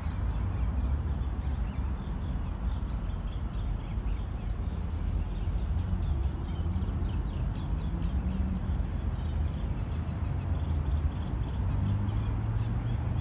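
Small birds chirping repeatedly outdoors over a steady low rumble.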